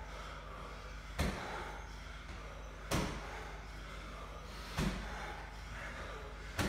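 9 kg medicine ball thudding against the wall target in repeated wall-ball throws: four dull thuds, about one every 1.8 seconds, over a steady low hum.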